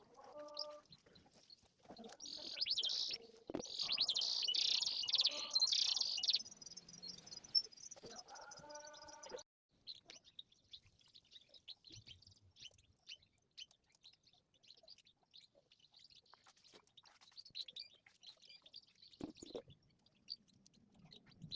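Canaries singing: a dense burst of high trilling chirps lasting about four seconds, then only faint scattered chirps and ticks.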